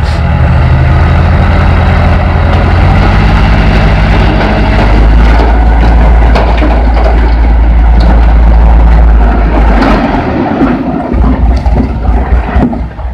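Diesel engine of a light dump truck running high and steady to drive the hydraulic hoist as the tipper bed rises. About ten seconds in the engine note falls away, followed by a rough rumble as the load of rock and soil slides off the bed.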